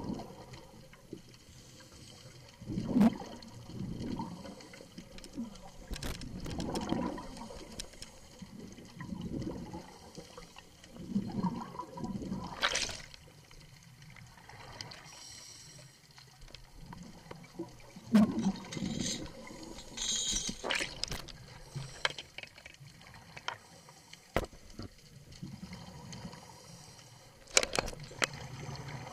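Scuba diver's exhaled breath bubbling out of the regulator, heard underwater: gurgling bursts of bubbles every couple of seconds, with a few sharp clicks in between.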